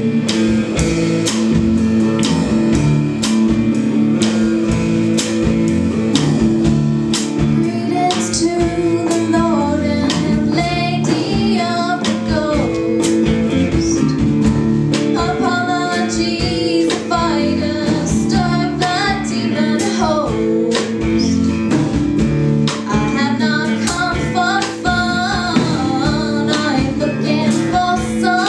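A live band playing an original song: electric guitars and a drum kit keeping a steady beat, with a woman's voice singing in from about eight seconds in.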